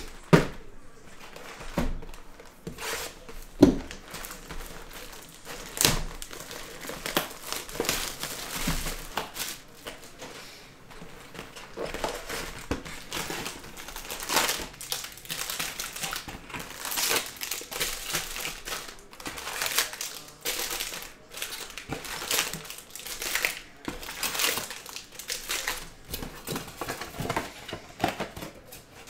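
A cardboard hobby box of 2022 Bowman Draft baseball cards being opened by hand and its foil-wrapped packs pulled out. Irregular crinkling and rustling of packaging, with sharp cardboard clicks and knocks now and then.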